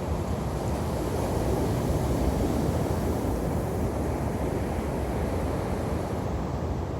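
Ocean waves breaking and washing on a sandy beach, a steady surf rush with a slight swell a couple of seconds in, with some wind on the microphone.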